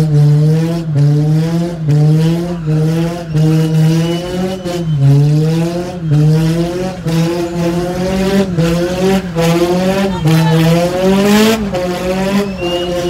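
Honda S2000's inline-four engine revving hard in quick repeated surges, rising and falling about once a second, while drifting, heard from the open cockpit. Brief tire squeals come through about four seconds in and again near the end.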